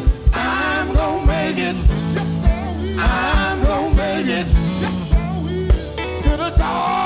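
Live gospel music: a male lead vocalist singing over a band, with deep held bass notes and a kick drum thumping about twice a second.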